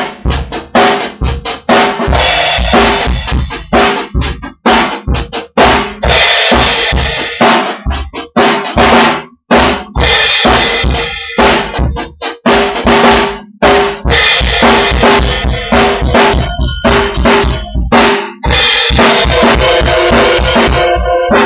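A child playing a drum kit loudly: fast, uneven bass drum and snare hits, with a ringing cymbal wash every few seconds.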